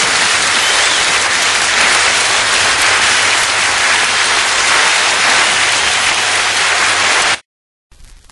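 Audience applause at the end of a live music recording, a steady dense clatter that cuts off abruptly about a second before the end.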